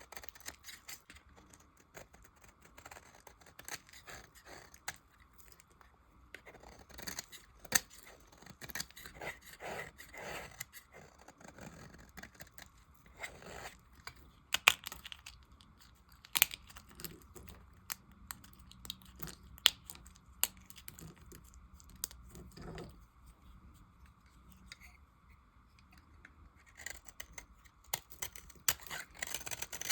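Knife cutting and scraping through bars of leftover soap: irregular crisp cuts, scrapes and clicks, with a quieter stretch about three-quarters of the way through.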